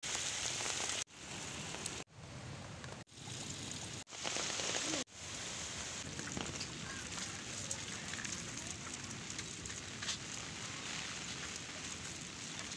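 Heavy rain falling steadily, a dense hiss. In the first five seconds it drops out abruptly about once a second and comes straight back.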